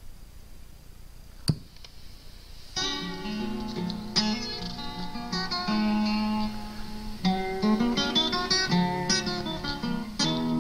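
Lear Jet 8-track tape player starting up: a sharp click about a second and a half in, then guitar music playing from the 8-track cartridge from about three seconds in.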